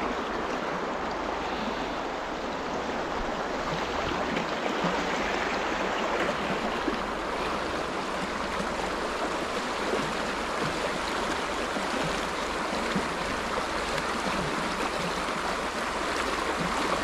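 A shallow, fast-flowing river running over a stony bed: a steady rush of moving water.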